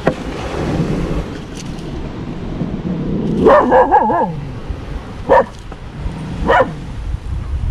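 A dog barking: a longer wavering cry a little past three seconds in, then single barks about five and six and a half seconds in, over a steady low background rumble.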